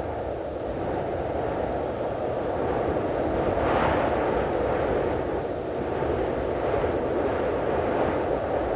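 Wind blowing outdoors: a steady rushing noise that swells and eases, with stronger gusts about four seconds in and again near the end.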